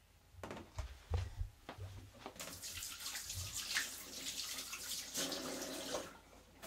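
A few light knocks of a plastic container being handled, then a kitchen tap running steadily into a stainless-steel sink for about four seconds before it stops.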